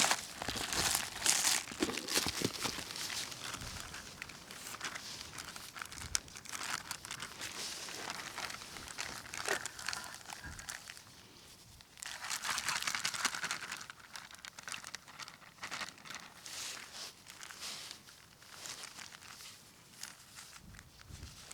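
Crinkling and rustling of plastic packaging handled by hand in irregular spells, with scattered small clicks.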